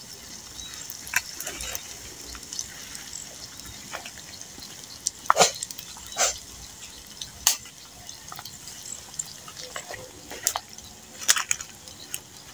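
Pandan leaves deep-frying in a small pan of oil over a wood fire: a steady sizzle with irregular sharp pops and crackles.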